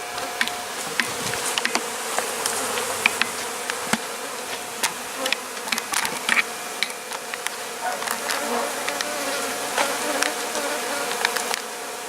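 A large mass of honeybees buzzing around a hive box while the colony is being relocated. It is a dense, steady hum scattered with many short ticks.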